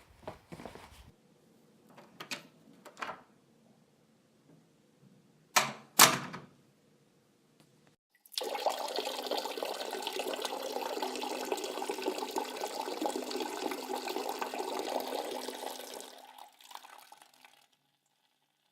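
A few quiet knocks, then two sharp knocks about half a second apart, then a steady stream of liquid splashing into toilet bowl water for about eight seconds that trails off near the end.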